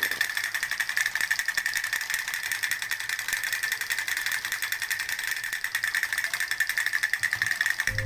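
Small battery-powered toy mechanism running, its tiny motor and plastic gears making a steady, rapid rattling buzz.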